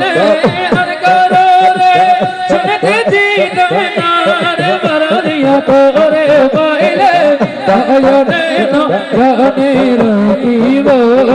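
Several men singing a Bengali Maijbhandari devotional song (kalam) into microphones, continuously and loudly, with held and gliding notes.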